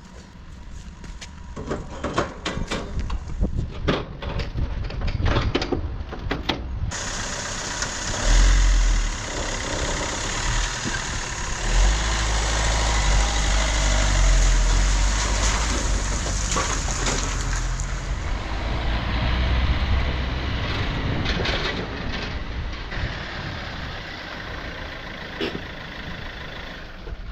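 An engine-driven machine running loudly, with many sharp crackles and snaps. The noise thickens into a heavy rumble about seven seconds in and eases off over the last several seconds.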